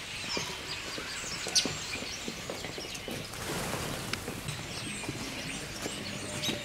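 Outdoor background noise with scattered short bird chirps.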